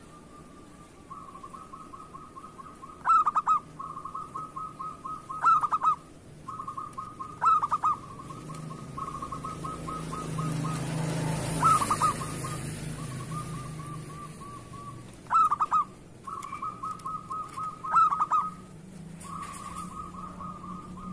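Zebra dove (perkutut) cooing: a soft, fast-pulsed trilling coo that runs almost without a break, with a louder coo note every two to four seconds, six in all.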